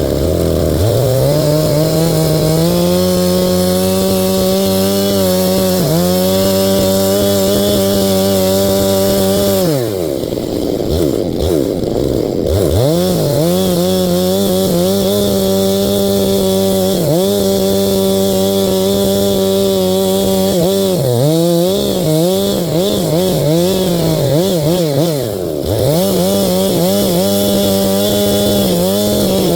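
Stihl MS 661 two-stroke chainsaw at full throttle cutting into a dry stump, its engine pitch holding high and dipping now and then as the chain bites. It drops off briefly about ten seconds in before revving back up, and winds down right at the end.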